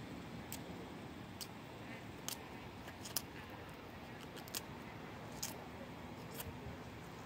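Outdoor background noise, a low steady hiss, with a short sharp click about once a second.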